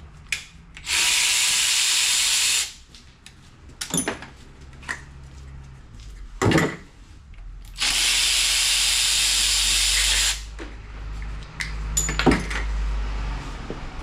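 Pneumatic shop tool letting out two steady bursts of compressed-air hiss, each about two seconds long, with a few sharp metal clanks between them.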